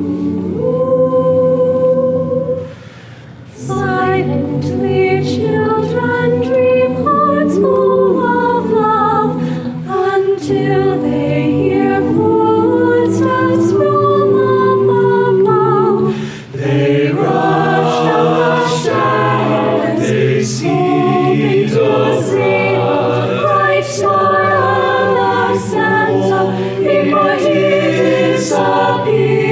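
High school madrigal choir singing a cappella in held, sustained chords, with crisp 's' consonants. The choir breaks off briefly about three seconds in and takes a quick breath halfway through.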